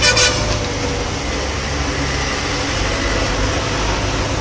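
Vehicle engine running with steady road noise while driving, a low rumble under a dense hiss. A horn toot trails off right at the start.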